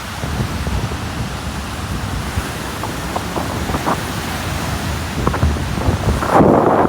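Strong wind buffeting the microphone: a steady rush of noise with rumbling low gusts. About six seconds in a harder gust makes it louder and duller.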